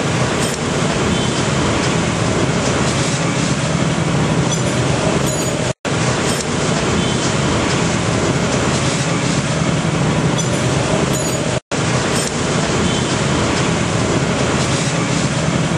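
Steady, loud rumbling background noise with no distinct events. It breaks off twice in brief silences about six seconds apart as the same stretch of sound plays three times over.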